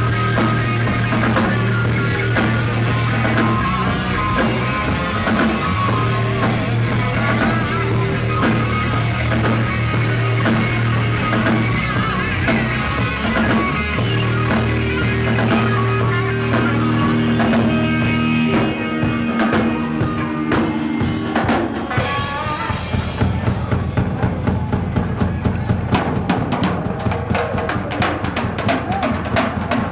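A rock band playing live at full volume: distorted electric guitars, bass and a drum kit. A little over two thirds of the way through, the guitars and bass drop out and the drummer plays on alone in a drum solo of rapid, repeated drum hits.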